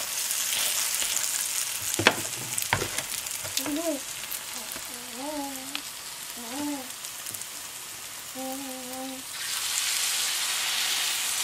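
Grated-potato pancakes frying in hot oil in a nonstick pan: a steady sizzle, with two light knocks about two seconds in. The sizzle grows louder near the end as a second portion of grated potato goes into the oil.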